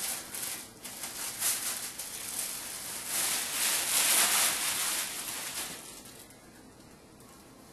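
Tissue and wrapping paper rustling and crinkling as a present is unwrapped, loudest in the middle and dying away about six seconds in.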